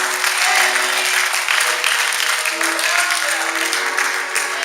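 A congregation applauding, many hands clapping, over held instrumental chords.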